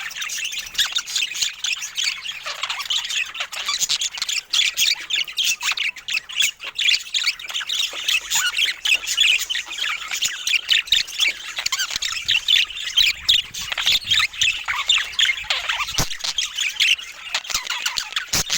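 A group of budgerigars chattering: a dense, continuous run of quick, high chirps overlapping one another.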